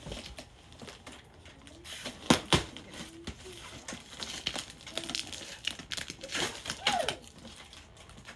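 Packing wrapping crinkling and rustling as a box of dolls is opened and unwrapped. Two sharp knocks come close together a little over two seconds in, the loudest sounds.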